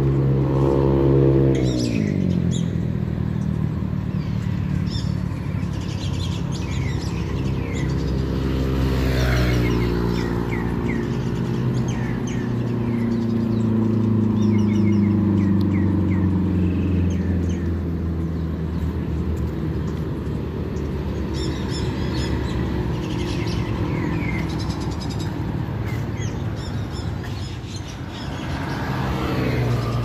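Road traffic passing on a multi-lane road, engine notes swelling and dropping in pitch as vehicles go by, with birds chirping throughout.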